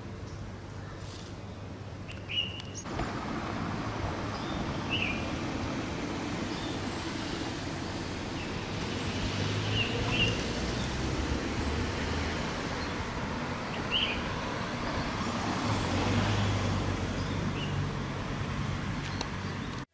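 Street ambience: a steady hum of traffic, which grows louder about three seconds in, with a small bird giving short chirps every few seconds.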